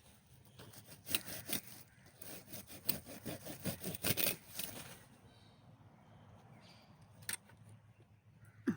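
Thick grass and brush being cleared by hand: a dense run of rustling, snapping and scraping strokes for about four seconds, then quieter, with a single sharp click near the end.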